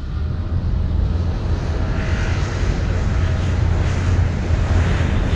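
Piston engine and propeller of a light aircraft running as it taxis, a steady low drone that grows gradually louder.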